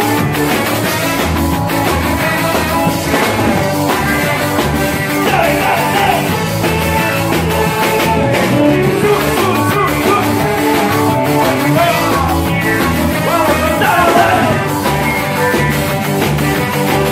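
Live cumbia band music played loud through a club sound system, with a steady repeating bass beat and a voice singing over it.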